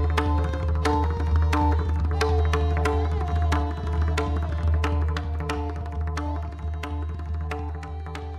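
Background music for Kathak: rapid tabla strokes over a repeating melodic line and a steady low drone, getting gradually quieter in the second half.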